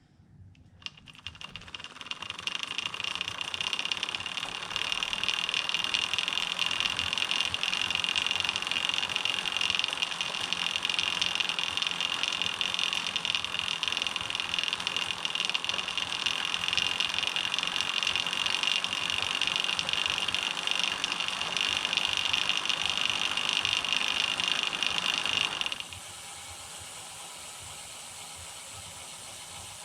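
Bicycle chain running over an idler pulley fitted with a high-density polyethylene chain keeper as the cranks turn: a loud, steady, high-pitched chain noise that builds over the first few seconds and cuts off suddenly near the end, leaving a quieter steady noise. The keeper does not touch the chain, but the builder suspects it acts as an amplifier for the idler noise.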